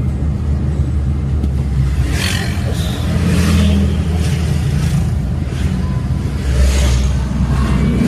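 Suzuki Karimun hatchback driving at road speed: a steady low engine and road drone, with a hiss of tyre and wind noise that swells and fades several times.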